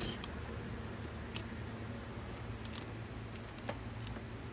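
A few light, irregular clicks and ticks of hand tools and small metal parts while a wire terminal is fastened during scooter wiring work. The sharpest click comes about a second and a half in.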